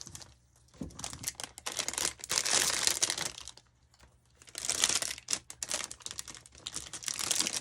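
Plastic packaging crinkling and rustling as the pieces of a snap-together model kit are handled, in two spells with a short pause in between.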